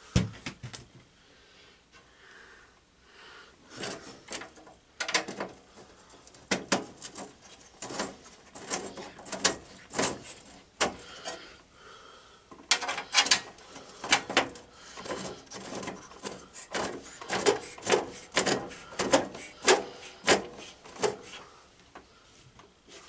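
Irregular clanks, clicks and knocks of hand tools and metal parts being handled during mechanical work on a garden tractor, picking up into a busier run of quick knocks about halfway through.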